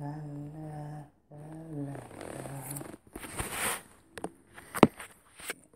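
A woman's voice holding long sung or hummed notes without words, then a loud breathy exhale about three seconds in, followed by a few sharp clicks.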